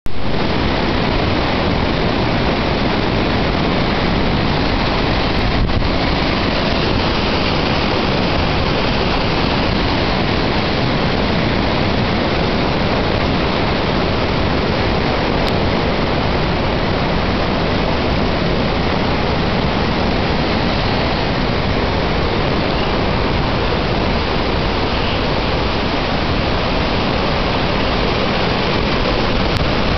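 Floodwater of the White River at flood stage pouring over a low weir and churning below it: a loud, steady rush of white water.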